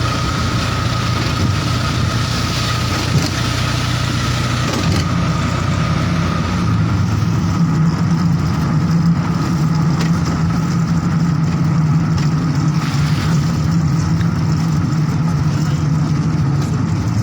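A motor vehicle's engine running steadily with a low hum, with some hiss over it in the first few seconds.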